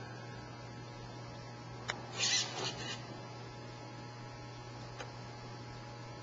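A steady low electrical hum, with a sharp click about two seconds in, followed by a short hissing burst, and a fainter click near the end.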